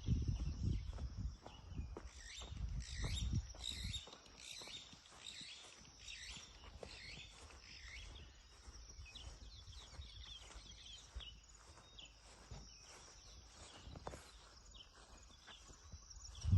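Wild birds chirping and calling with many short high chirps, over a low rumble of wind on the microphone that is strongest in the first few seconds and again right at the end.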